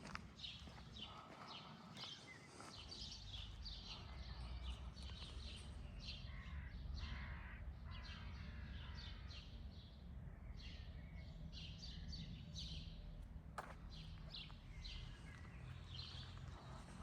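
Songbirds chirping and singing in many short, high calls, over a low steady rumble, with a single sharp click near the end.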